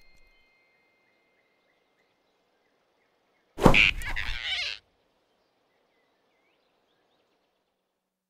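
A sudden loud cartoon sound effect, about a second long, about three and a half seconds in, as the big rabbit snatches the flying squirrel in his fist. Otherwise near silence with faint forest ambience.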